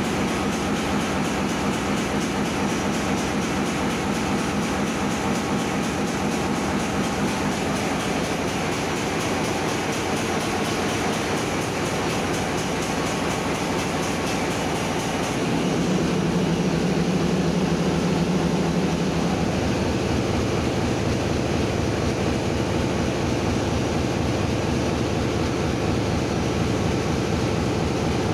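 Steady, loud drone of running ship's engine-room machinery, with a stronger low hum coming in about halfway through and fading out a few seconds later.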